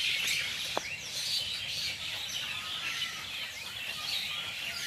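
Many birds chirping together in the trees, a dense, continuous evening chorus of short overlapping chirps, with a single brief click just under a second in.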